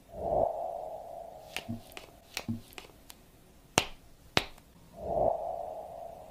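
Sharp clicks and taps from a folding phone's hinge and frame as it is handled and folded, about eight in all, the loudest two near the middle. Two soft whooshes come just before and just after them.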